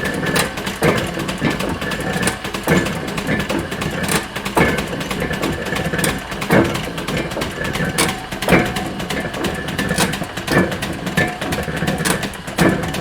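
Factory floor ambience: machinery running with a steady hum, broken by irregular clanks and knocks.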